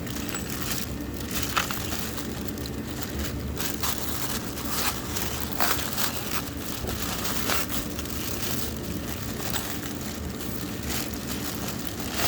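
Packaging crinkling and rustling in irregular crackly bursts, as a new part is handled and unwrapped.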